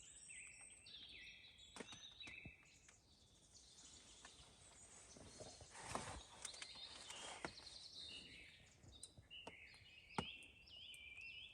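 Faint bird calls: short high chirping notes repeated over and over, with a few soft knocks or snaps about two, six and ten seconds in.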